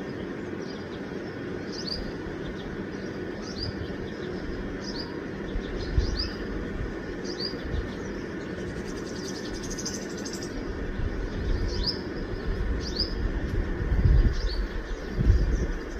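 A small bird chirping over and over, short high notes about once a second, over a steady low rumble that grows louder near the end.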